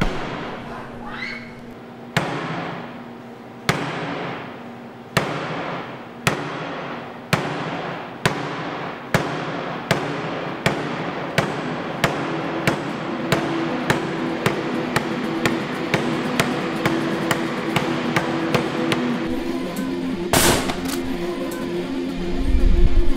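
Suspense film score: sharp percussive hits that start about a second and a half apart and come faster and faster, with a sustained droning tone building underneath from about halfway through. A harsh noisy hit about twenty seconds in, then a deep low surge near the end.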